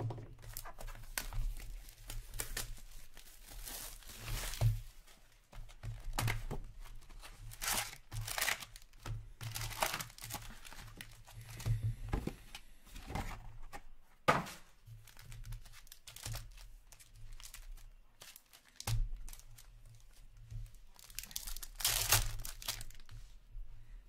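Foil hockey card packs being torn open and their wrappers crinkling, in irregular bursts of rustling. There is a sharp tap about fourteen seconds in.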